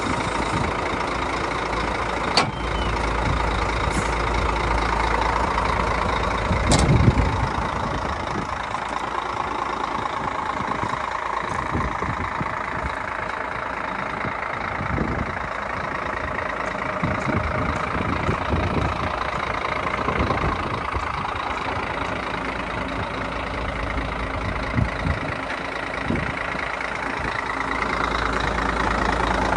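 Scania P114 380 dump truck's diesel engine idling steadily, with a single thump about seven seconds in.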